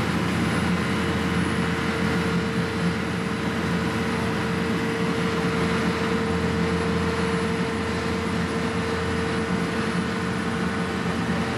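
Fishing boat's engine running steadily under way, with a constant hum over the rush of water from the wake.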